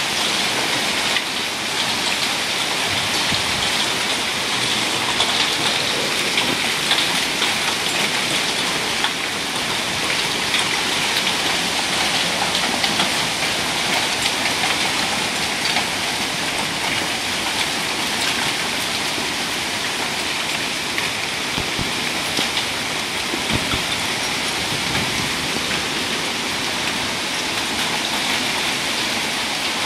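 Torrential rain pouring down onto a patio, pool and lawn: a loud, steady hiss of splashing water.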